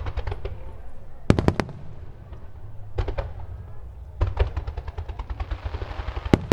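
Aerial fireworks bursting in rapid succession: a cluster of loud bangs about a second and a half in, then a dense, fast run of sharp reports through the second half.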